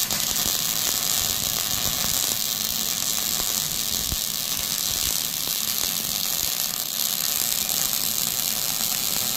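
Wire-feed welder arc laying a continuous bead on steel: a steady crackling sizzle at an even level, starting abruptly at the outset.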